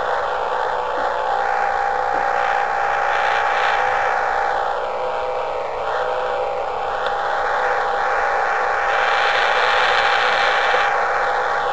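Radio static from a shortwave receiver listening for Jupiter's decametric radio emissions: a steady hiss with a thin, steady whistle running through it and slow, sweeping swishes. The hiss grows brighter about nine seconds in.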